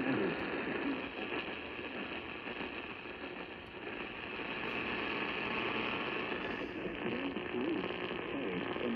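AM radio static and hiss as the station's signal fades, nearly drowning the voice reading the severe thunderstorm warning; faint traces of the voice come through at the start and again near the end.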